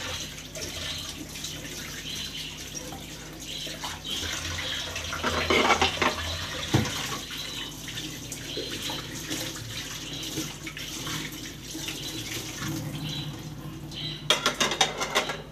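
Tap water running steadily into a kitchen sink as soaped plates are rinsed by hand under the stream, the splashing changing as the plates are turned and rubbed. There is a single knock about 7 seconds in, and near the end a quick run of clinks as plates knock together.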